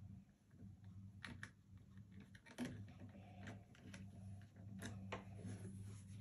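Faint, irregular light clicks and taps over a low steady hum.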